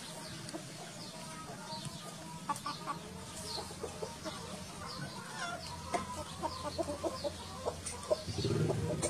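Chickens clucking, with many quick, high chirps mixed in throughout. A louder burst of low noise comes near the end.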